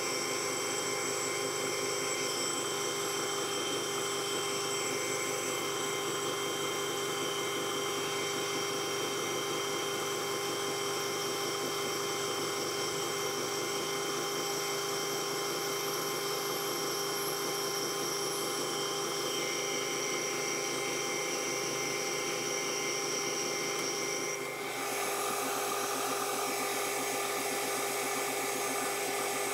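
Metal lathe running with a steady whine of several tones while a boring bar cuts inside a steel bush under flowing coolant, opening the bore to about an inch. About 24 seconds in the sound dips briefly and its tone shifts, then runs on steadily.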